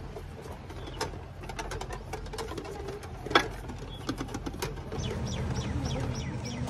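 Metal prayer wheels being spun by hand, giving scattered clicks and knocks with one sharp knock about halfway through. In the last couple of seconds there is a quick run of high, falling squeaky chirps.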